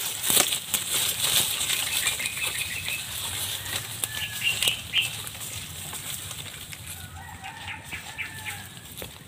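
Rapid rustling and thrashing in dry leaves and grass, busiest in the first few seconds and then dying down. Short bird calls come in around the middle and again near the end.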